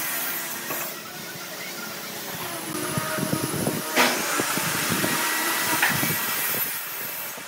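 Steady background rumble, with a sharp knock about four seconds in and a lighter one near six seconds as a wooden block is set onto a carved pine table leg.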